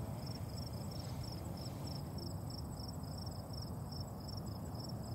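Crickets chirping steadily, a regular chirp repeating about two to three times a second, over a low rumble of night ambience.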